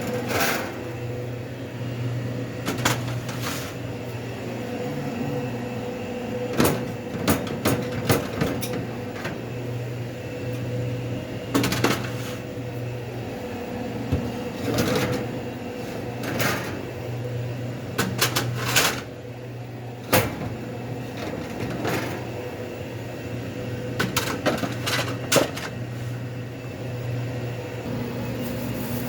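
Sandwich-counter work: irregular clicks, knocks and clatters of things being handled and set down, over a steady hum of running equipment.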